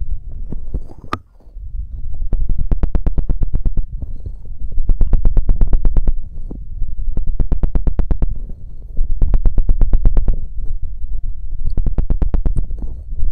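Very fast scratching and knocking of an ASMR tool directly on the microphone, at about ten strokes a second in repeated bursts of a second or two, each stroke with a deep rumble.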